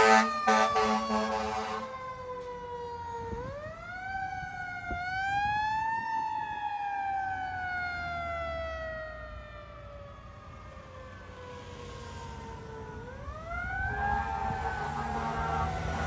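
Fire rescue truck's siren wailing: a long falling tone, a rise about three seconds in, then a slow fall of several seconds and a second rise near the end. The siren fades as the truck moves off, then grows louder again near the end.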